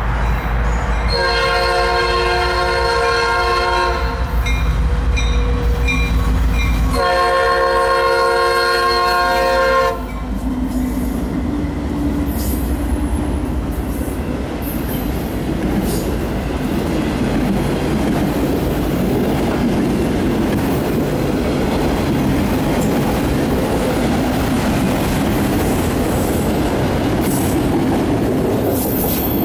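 Horn of an ex-Conrail Norfolk Southern diesel locomotive sounding a chord in two long blasts, the second ending about ten seconds in, over the loud rumble of its engine as it passes close by. Then a long string of autorack freight cars rolls past with a steady rumble, the clickety-clack of wheels over the rail joints and brief faint wheel squeal.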